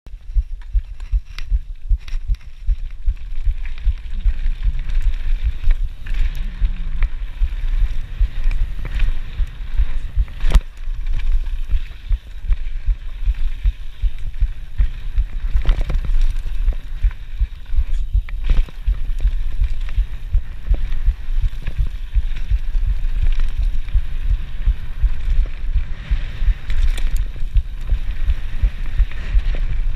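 Scott Spark mountain bike ridden fast down a dirt trail, heard through an action camera's microphone: a dense, rapid low thumping from wind and trail shocks, with scattered sharp clicks and rattles from the bike. The rider calls the thumping his heartbeat.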